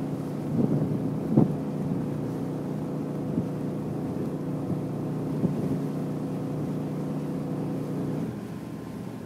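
Passenger ferry's engines running under way with a steady low drone, with a couple of short thumps in the first two seconds. The drone eases slightly near the end.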